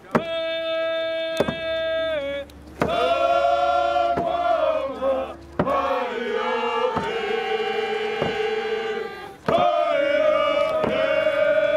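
A group of voices singing a Native prayer song in long, held notes, with a sharp beat struck about every second and a half.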